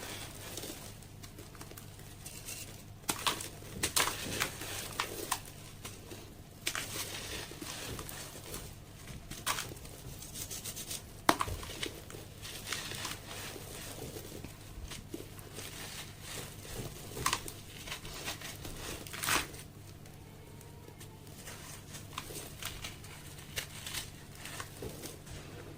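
Sand-cement slabs crunching and crumbling: irregular crisp cracks and gritty crumbles, with one sharp crack a bit past the middle standing out as the loudest.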